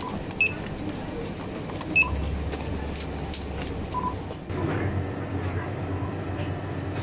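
A few short electronic beeps from a cashier's handheld barcode scanner as items are scanned, one near the start, two about 2 s in and a slightly longer one about 4 s in, over a low steady hum.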